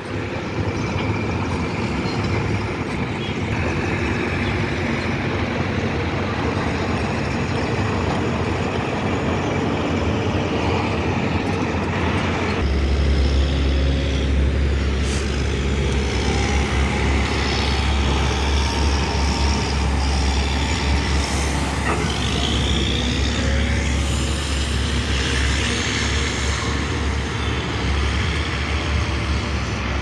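Heavy diesel construction vehicles running steadily, with a deep low rumble setting in about 12 seconds in.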